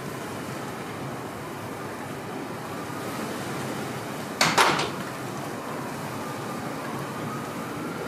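Steady outdoor noise of a city street in a heavy snowstorm, with a faint siren wailing in the distance. About four and a half seconds in, a sudden loud rush of noise lasts about half a second.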